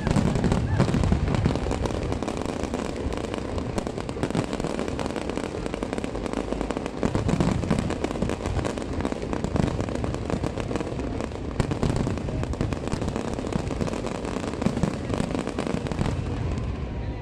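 Fireworks display: a dense, continuous barrage of bangs and crackling from many aerial shells bursting at once, with deep booms swelling now and then.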